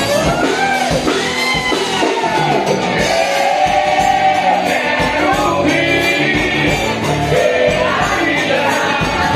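Loud forró music: a singer over a steady dance beat.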